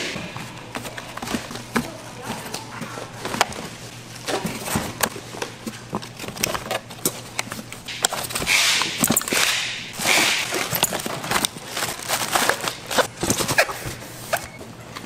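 Side-dish kitchen work: many irregular clicks and knocks of utensils and containers, with two short bursts of hiss past the middle, over a steady low hum.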